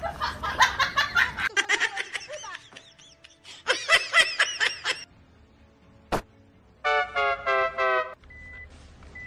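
Laughter, ending in a run of about five short 'ha' bursts seven to eight seconds in, with a single sharp click just before it.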